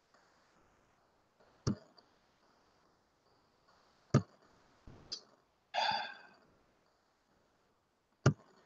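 Four sharp, separate clicks of a computer mouse spread across a few seconds, with a short sigh a little past the middle.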